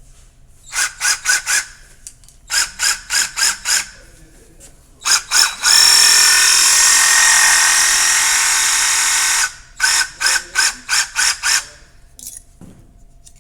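Battery-powered Nemo submersible reciprocating saw (model RS-V1) run in air on its trigger: groups of quick short bursts, then held on for about four seconds of steady running, then more quick bursts. The motor comes up to speed each time, showing the saw works.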